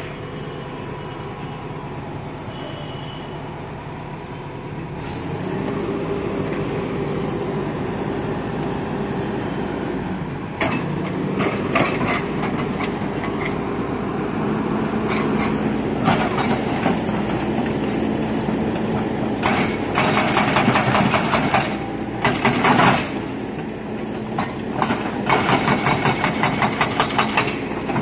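Excavator diesel engine idling, then revving up about five seconds in. From about halfway on, the hydraulic breaker hammer pounds in rapid bursts of blows, several bursts with short pauses between them.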